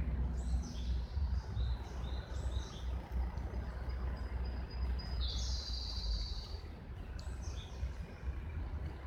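Wild birds calling: a series of short, high chirping calls, with one longer, brighter call about five seconds in, over a steady low rumble.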